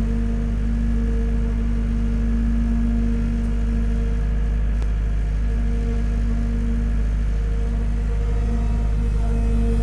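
Construction machinery running steadily during a concrete pour: a low engine drone with a constant hum that does not change.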